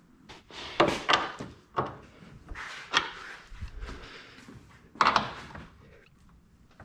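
A 17 mm wrench working the nuts that hold a strut bar to the car: short metallic clicks and clunks a second or two apart, loudest about a second in and about five seconds in.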